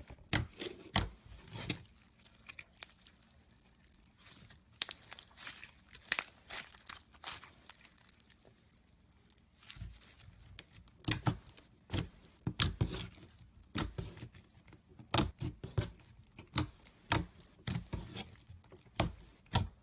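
Slime being squeezed and stretched by hand, giving irregular crackles and pops, with a short pause about halfway through.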